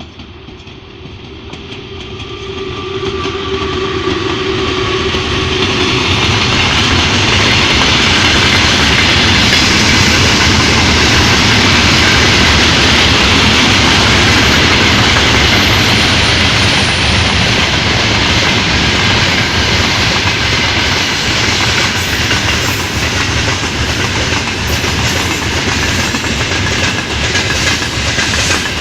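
Freight train hauled by a VL11 electric locomotive approaching and passing close by, growing steadily louder over the first several seconds. The wagons then roll past with the clickety-clack of wheels over rail joints. A steady whine sounds in the first few seconds as it approaches.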